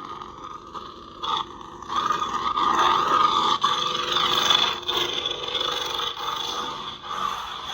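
Lightsaber sound board (Highborn Saber with Asteria board) playing a sound font's blade hum through its speaker, a steady electric drone that swells and dips as the blade is moved, with a short burst about a second in.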